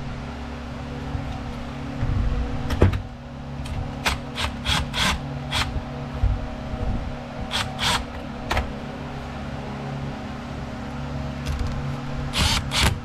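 Cordless impact driver run in short bursts, driving a screw into the pole saw's shaft clamp: a quick run of pulses about four seconds in, a few more around eight seconds, and another group near the end. A steady low hum runs underneath, with a single knock a few seconds in.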